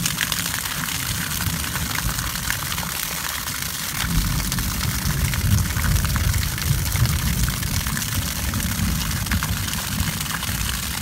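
Water streaming down a wall and splashing steadily onto the ground, a continuous hiss and splatter like heavy rain, with a low rumble underneath.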